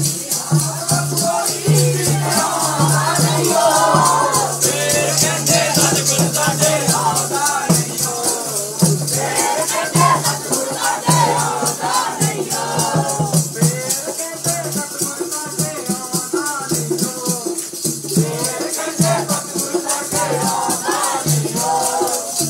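A group of men singing a devotional hymn into handheld microphones, over a fast, steady rattling beat of jingling hand percussion.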